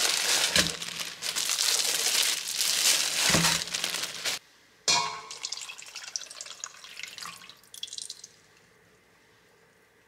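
Plastic bag crinkling as raw chicken thighs are tipped out of it into a stainless-steel bowl, with two dull thuds. From about five seconds in, whey poured from a bottle splashes over the chicken, fading out before the end.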